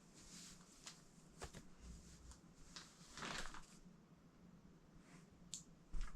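Faint rustling and handling noises from unpacking a parcel, with a longer rustle about three seconds in and a short thump near the end.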